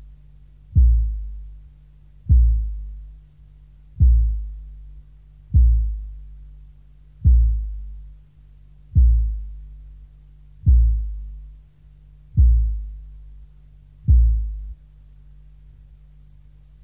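Industrial noise music: nine deep, low thuds repeating about every 1.7 seconds, each with a sharp onset that fades over about a second, over a steady low hum. The thuds stop about two seconds before the end, leaving the hum alone.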